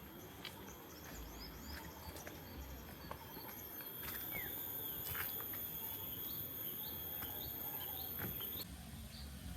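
Tropical jungle ambience: insects keep up a steady high-pitched whine while birds chirp. In the second half a bird repeats a short chirp about twice a second.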